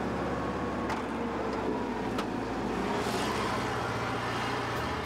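Volkswagen Typ 166 Schwimmwagen's air-cooled flat-four engine running steadily while the car drives over rough forest ground, with a couple of sharp knocks from the body.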